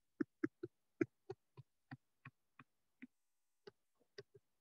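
A stylus tip tapping down on a digital writing surface while writing by hand: a run of short, light clicks at uneven spacing, about three or four a second.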